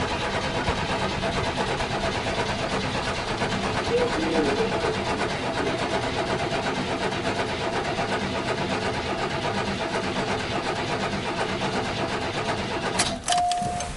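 A 1986 Buick Grand National's freshly rebuilt 3.8-litre turbo V6 being cranked over by the starter with the fuel pump disconnected, so it turns without firing. This primes the oil pump and builds oil pressure in the new engine. The cranking runs steadily and cuts off about a second before the end, and a short steady tone follows.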